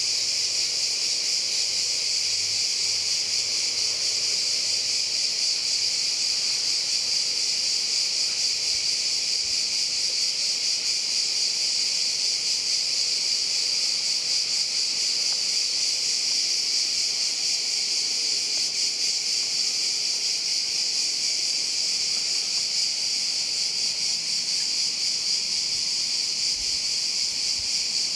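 Dense chorus of crickets chirring without a break, a steady high-pitched shimmer.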